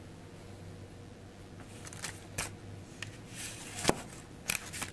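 Handling noise: short rustles and a few irregular sharp clicks as things are moved about close to the microphone, the sharpest click just before four seconds in and another about half a second later.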